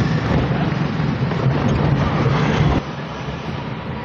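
Car engine and road noise while driving, a steady low hum that drops off abruptly about three seconds in.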